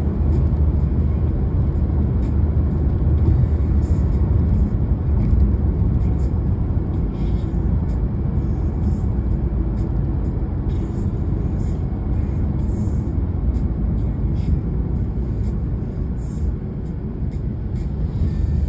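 Steady low rumble of a car driving along a road, tyre and engine noise, easing off slightly near the end.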